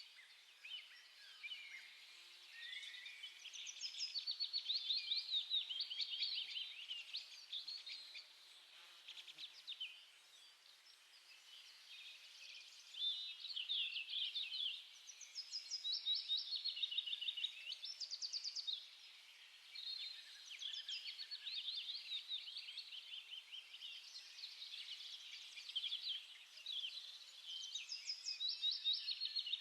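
Small birds chirping and twittering in rapid, overlapping trills that rise and fall in waves.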